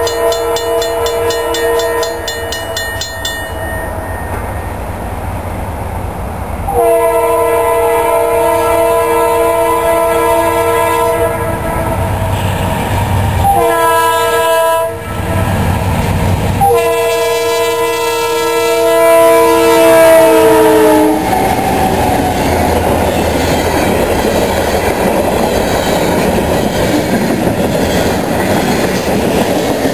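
CSX freight locomotive's horn blowing the grade-crossing signal: long, long, short, long. The pitch of the last blast drops as the locomotive passes. Then the loaded freight cars roll steadily past on the rails.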